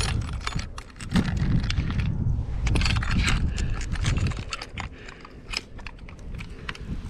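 Plastic spring-scale fish lip gripper clicking and rattling in the hands as it is clipped onto a bass's lip and the fish is hung and weighed, with irregular sharp clicks throughout. Wind rumbles on the microphone underneath.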